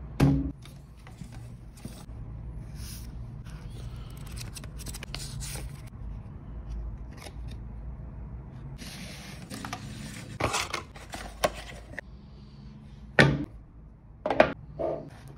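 Packaging being handled by hand: rustling and scraping of paper and card, with a few sharper taps and knocks from the cardboard watch box, the loudest in the last third.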